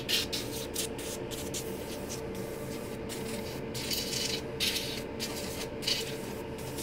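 Compressed air blown in repeated short bursts of hiss, clearing the last dust out of a laptop chassis.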